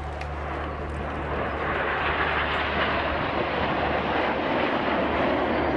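Jet noise from the Red Arrows' formation of BAE Hawk T1 jets flying past: a steady rush that grows louder from about a second and a half in as the formation draws closer.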